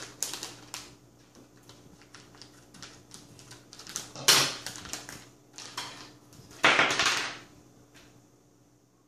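Crinkling and rustling of a metallised anti-static bag being handled and opened, with small clicks and taps of parts on the table; two louder crinkles come about four seconds in and again around seven seconds.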